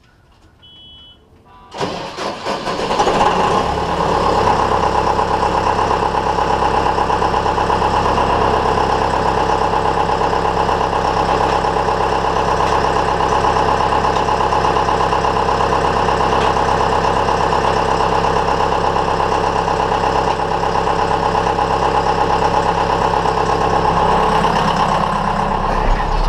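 A John Deere combine's diesel engine starting from cold: a short beep about a second in, then the engine catches about two seconds in and settles into a steady, loud run.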